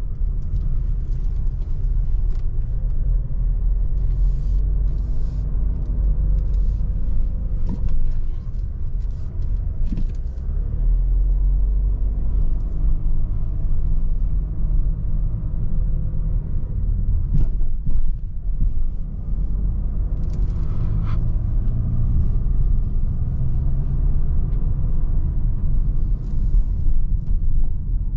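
Inside the cabin of a 2019 Audi Q3 with a 2.0-litre four-cylinder diesel, engine and road rumble while driving slowly. The engine note rises and falls as the car pulls away and eases off, with a few brief knocks.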